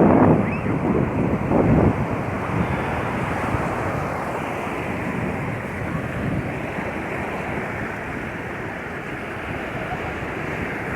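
Sea waves washing onto a beach: a louder surge in the first two seconds eases into a steady rushing wash, with wind blowing across the microphone.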